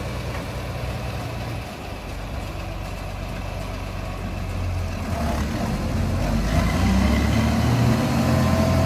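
Tractor engine running steadily while pulling a feed grinder into place, growing louder about five seconds in. A thin steady whine joins in near the end.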